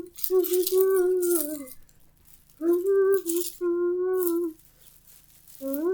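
A child humming a tune in long held notes, three phrases with short pauses between them, along with a rattling hiss like a shaker.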